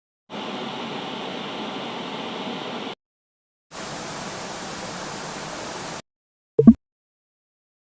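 Two stretches of steady hiss-like noise, each two to three seconds long with a short gap of silence between, followed near the end by a brief, sharp pop, the loudest sound.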